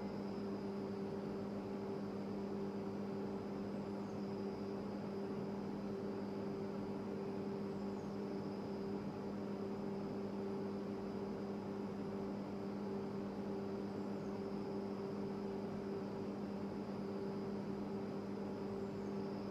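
A steady electrical hum, unchanging throughout, with a faint high whine above it.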